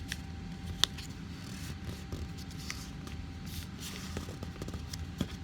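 A square of origami paper being folded and creased by hand: soft rustling and scraping with a sharp paper crackle about a second in and another near the end, over a steady low hum.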